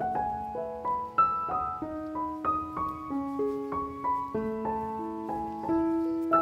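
Background piano music: a gentle melody of struck, decaying notes, several a second, over longer low notes.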